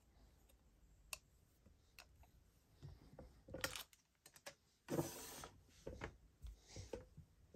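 Quiet handling noises: light clicks and taps from metal-framed sunglasses being handled, a brief cloth rustle about five seconds in as the fabric pouch is laid out, and a few soft knocks on the table near the end.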